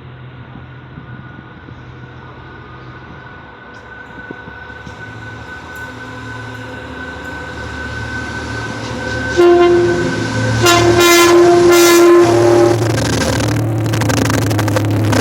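EMD GT22CW diesel-electric locomotive approaching with its engine growing louder, sounding its horn: a short blast about nine seconds in, then a longer one. The locomotive then draws close, its diesel running loud.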